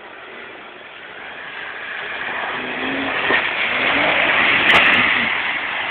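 1996 Jeep Grand Cherokee ZJ's 4.0-litre straight-six revving as it drives through a mud hole, with a rushing hiss of churned water and mud. It grows louder as it comes closer, loudest near the end, then eases a little.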